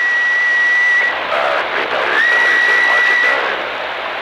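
CB radio receiver on the 11-meter band giving out loud static hiss with no station keyed, crossed twice by a steady high whistle tone, with faint garbled voice traces in the noise between.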